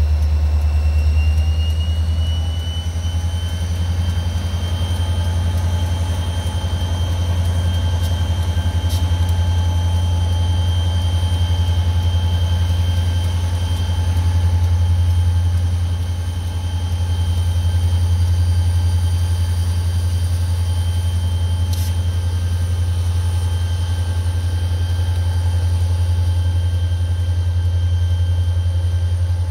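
Wheeling & Lake Erie #6982's diesel locomotive engine revved up under load as it shoves a cut of cars: a deep steady drone with a high whine that climbs over the first few seconds, holds, and starts to drop near the end.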